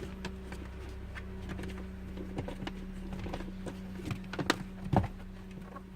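Plastic clicks and knocks from a child car seat being pushed and pressed into place to lock it, with two louder knocks near the end. A steady low hum runs underneath.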